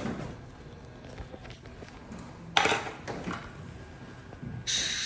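Faint clicks of metal dental hand instruments, a short hiss of compressed air about two and a half seconds in, and near the end a steady high hiss with a faint whine from dental air equipment starting up.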